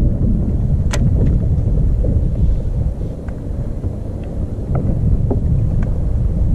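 Wind buffeting the microphone, a dense low rumble, with a few small ticks or knocks scattered through it.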